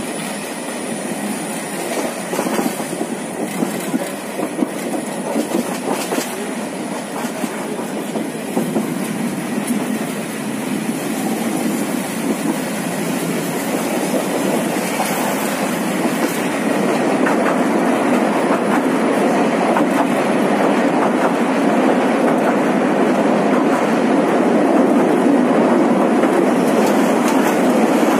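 Bangladesh Railway Kalni Express passenger train running at speed, heard from on board: a steady rumble of wheels on rails with clickety-clack over the joints. It grows louder over the second half.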